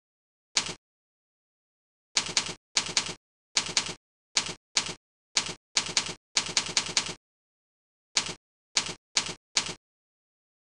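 Computer keyboard keystrokes typing out a filename: irregular runs of sharp clicks, with dead silence between the runs.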